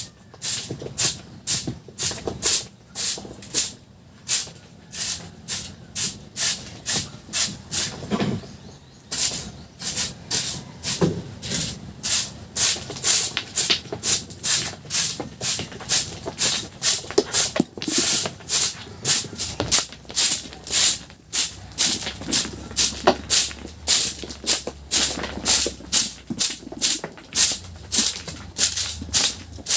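A broom sweeping small stones and debris off the floor in quick scratchy strokes, about two a second, pausing briefly a couple of times.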